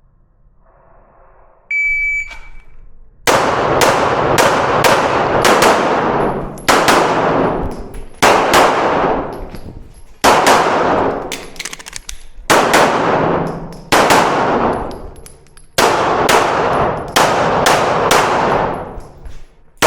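An IPSC shot timer gives its start beep, a single tone about two seconds in. About a second later, pistol shots follow in fast pairs and strings with brief pauses for movement and reloads, each shot echoing out behind it.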